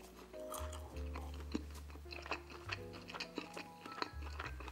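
Close-miked chewing of pizza: short scattered mouth clicks and smacks. Quiet background music with slow, held bass notes plays underneath.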